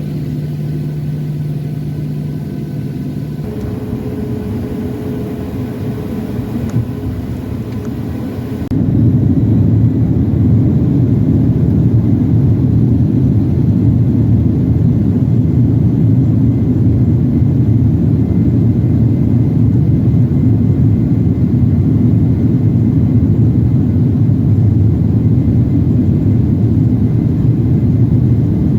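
Jet airliner engines heard from inside the cabin, first a steady whine, then about nine seconds in a sudden jump to a loud, steady low rumble typical of the takeoff roll.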